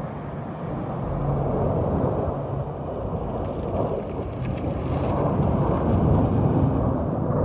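Jet engine rumble from Blue Angels F/A-18 Super Hornets flying overhead: a steady low rumble that slowly grows louder.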